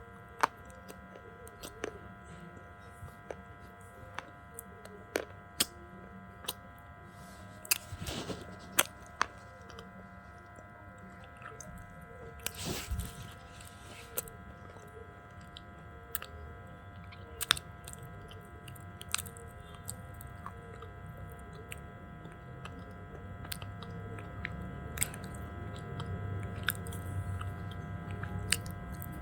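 A person chewing and crunching pieces of slate close to the microphone: scattered sharp cracks and snaps, with a cluster of louder bites about eight seconds in and again around thirteen seconds.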